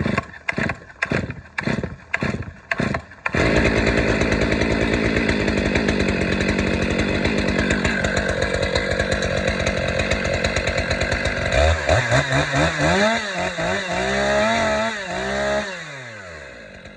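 Stihl MS 500i fuel-injected two-stroke chainsaw being pull-started: about six quick pulls of the starter cord, then the engine catches about three seconds in and runs steadily. Around twelve seconds in it is revved up and down several times, then shut off, its pitch falling as it winds down.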